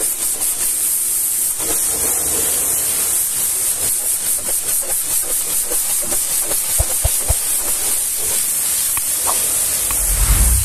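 High-pressure washer jet spraying the steel side panel and fuel tank of a truck: a steady, loud hiss of water blasting and spattering on metal. A couple of short knocks come about two-thirds of the way through, and a low rumble swells near the end.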